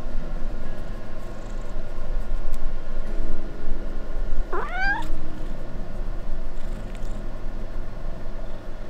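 A domestic cat gives one short, rising meow about halfway through while being stroked, the coaxing, affectionate voice it uses when handled in a small space. A steady low hum runs underneath.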